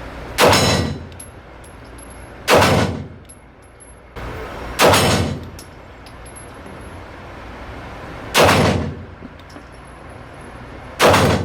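Five pistol shots from a Smith & Wesson M&P M2.0 Metal handgun, fired singly at an uneven pace two to three and a half seconds apart. Each shot rings briefly in the echo of an indoor range.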